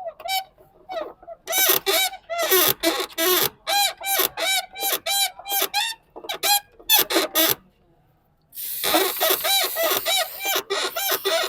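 Car door squeaking over and over as it is swung: a run of short, high, rising-and-falling squeaks, about three a second, then a short pause and a denser run near the end. The squeak is the fault the door is being worked to show.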